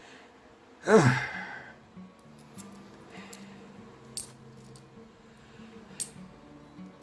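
A loud, short burst from a man's voice about a second in, falling in pitch. Later come two sharp clicks of 50p coins being handled.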